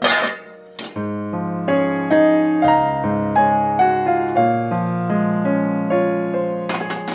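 Background piano music: a slow melody of sustained notes over low held bass notes. There is a short noisy rustle at the start and again near the end.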